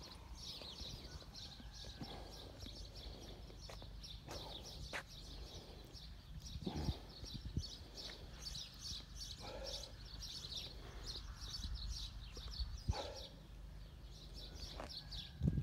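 Small birds chirping continuously in quick short calls, with a few dull thuds of footsteps on brick paving and a steady low rumble underneath.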